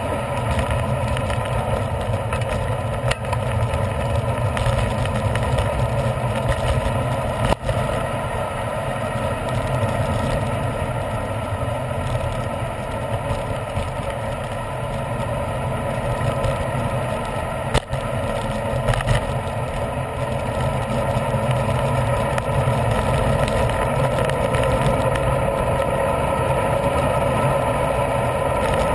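Steady wind rush over an action camera's microphone, mixed with the tyre and drivetrain noise of a road bicycle rolling on asphalt. Two brief knocks, about a third of the way in and again a little past halfway.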